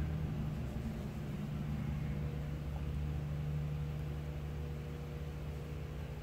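Steady low hum with a faint hiss: room background noise, with a faint thin tone joining about two seconds in.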